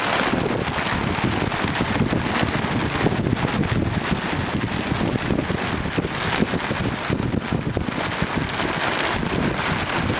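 Storm wind gusting hard over the microphone, with rain falling.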